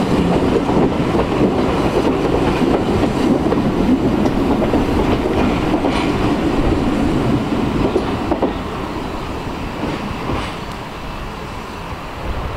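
Railway passenger coaches rolling past, their wheels clattering over the rails. The sound fades over the last few seconds as the train draws away.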